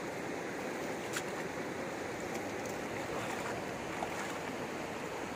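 Steady rush of fast-flowing river water, with a couple of faint clicks.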